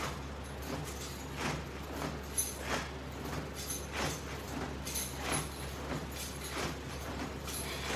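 Soft, short noises repeating roughly once a second from a person doing crunches on an exercise mat, over a steady low hum.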